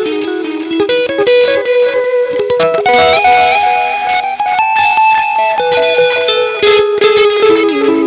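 Electric guitar played through a Mattoverse AirTrash pedal into a Swell Echo delay, with the guitar's volume rolled back for a cleaner fizz: a slow line of sustained notes stepping up and down, the echoes overlapping one another.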